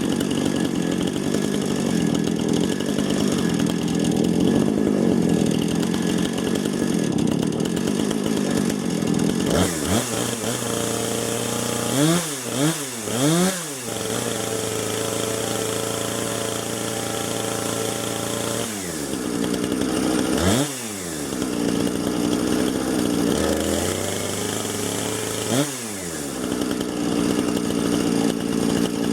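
Husqvarna 455 Rancher two-stroke chainsaw with a 24-inch bar and ripping chain running hard in a chainsaw mill, ripping a log lengthwise. The engine pitch dips and climbs back several times, three times in quick succession about twelve seconds in, as the load on the chain changes.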